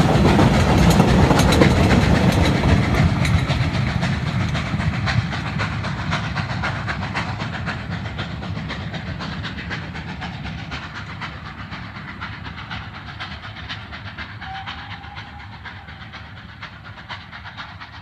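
Steam-hauled passenger train of Polish Ol49 locomotive Ol49-69 going past: coach wheels click over the rail joints amid steam hiss. The sound fades steadily as the train moves away, and a short faint whistle comes near the end.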